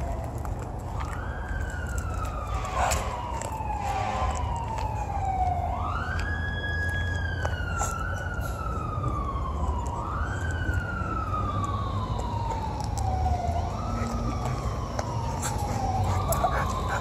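Emergency-vehicle siren wailing. Each cycle rises quickly and then falls slowly, repeating about five times, over a steady low rumble.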